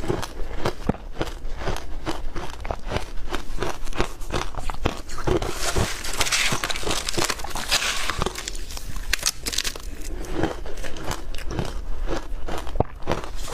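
Close-miked biting and chewing of powdery ice: a dense, continuous run of soft crunches and crackles, heavier for a few seconds in the middle.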